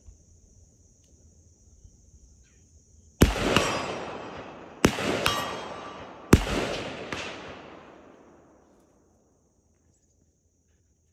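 Three rifle shots from a 5.56 mm Recce-style (Mk12-type) semi-automatic rifle, about a second and a half apart, each followed by a long echo dying away over a couple of seconds.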